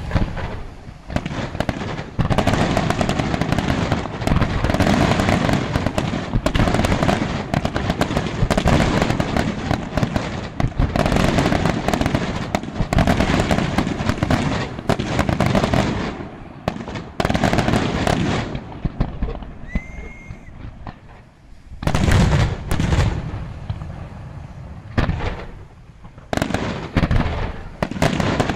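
Aerial fireworks display: a dense, rapid barrage of bangs and crackle, thinning out about two-thirds of the way through and then starting up again.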